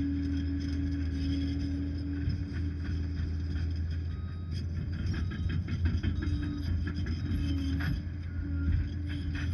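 Liebherr PR 746 crawler dozer working, its diesel engine running with a steady low drone and a held tone. From about halfway through there is a run of metallic knocks and rattles.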